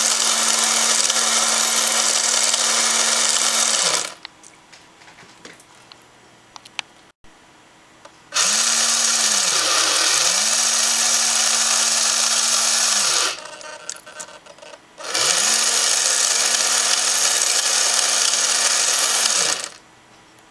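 Model sailing ship's sail winch running three times, each run about four to five seconds, with a steady motor-and-gear whirr that spins up at each start and winds down at each stop. In the middle run it briefly slows almost to a stop and picks up again.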